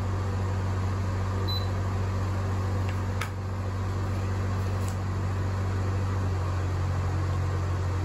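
Denbig portable air conditioner running with its compressor on: a steady low hum under fan air noise, its fan just set to low. A faint click about three seconds in.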